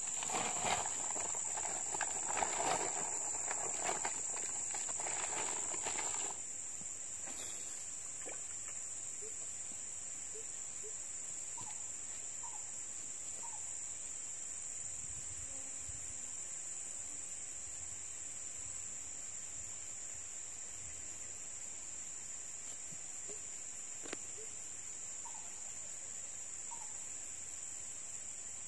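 Steady high-pitched drone of insects, with rustling and knocking noises over roughly the first six seconds.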